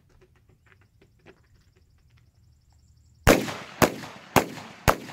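Four quick 12-gauge shotgun shots about half a second apart, starting about three seconds in, each with a short ringing tail.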